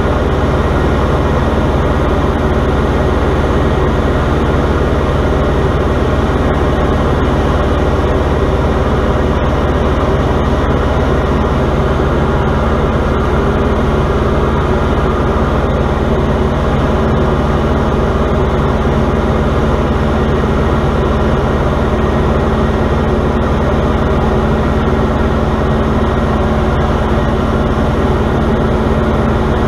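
Diamond DA40's piston engine and propeller droning steadily in flight, heard inside the cabin, with airflow noise over the airframe.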